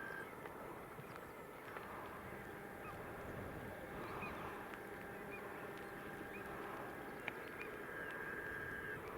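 Gulls calling in short scattered cries over the steady drone of a Valtra T.153 tractor ploughing.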